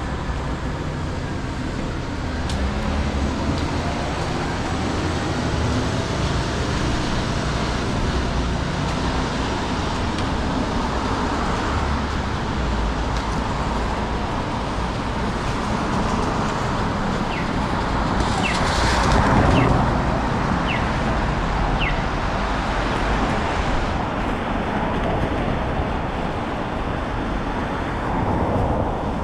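Steady city street traffic: vehicles running and passing on the road, with one louder pass swelling up about two-thirds of the way through.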